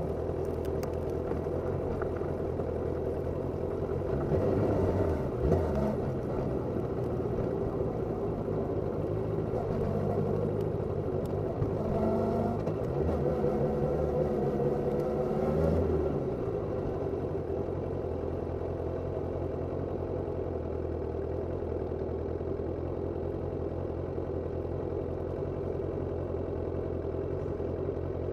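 Suzuki Katana 750 inline-four motorcycle engine idling steadily, picked up close from under the seat, with the throttle blipped a few times in the first half so the revs rise and fall before settling back to idle.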